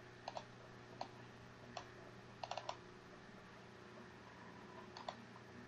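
Faint, scattered clicks of computer keys, with a quick run of four about two and a half seconds in, over a low steady hum.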